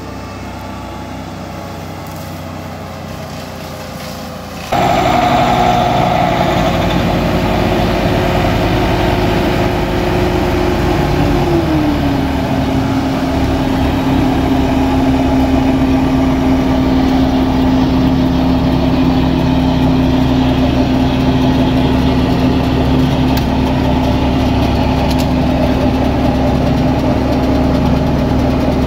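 Caterpillar compact track loader's diesel engine running. About five seconds in it becomes much louder and closer, and around twelve seconds in its whine drops in pitch and settles to a steady idle.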